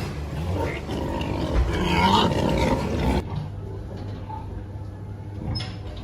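Pigs grunting and growling, loudest in the first half; about three seconds in the sound turns quieter, with a steady low hum under it.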